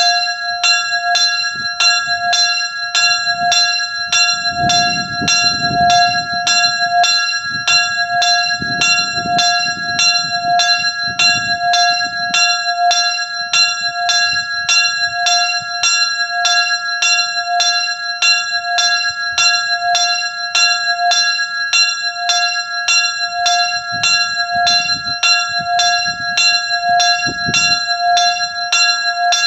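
Small bronze church signal bell (sygnaturka) swinging and ringing steadily, about two strokes a second, each stroke ringing on into the next.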